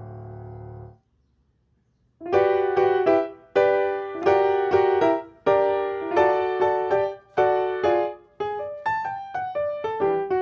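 Background piano music: a held chord cuts off about a second in, then after a short gap a melody of struck piano notes starts and runs on.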